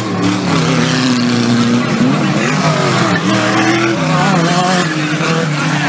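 Engines of several 4WD off-road race vehicles revving at once, their pitches rising and falling as the drivers work the throttles, over a steady hiss of tyres and dirt.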